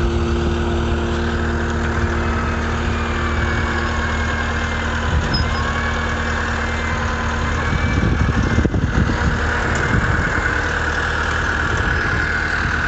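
Heavy vehicle engine running steadily at a low idle, with a faint steady whine above it that grows stronger near the end.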